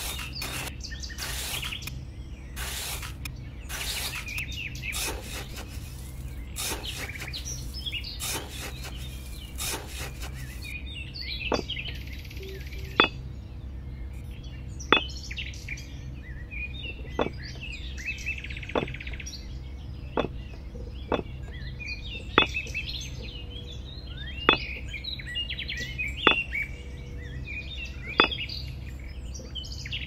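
Small hand trowel scraping and patting sand for about the first ten seconds, then a run of sharp clicks, one every second or two, as miniature clay bricks are set down and stacked. Birds chirp in the background.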